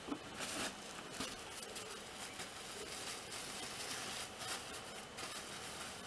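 Small stones clacking and scraping as they are packed by hand into the back of a dry-stone wall: a handful of short knocks, clustered near the start and again near the end, over a steady faint hiss.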